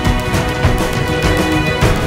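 Music soundtrack with a steady beat over sustained held tones.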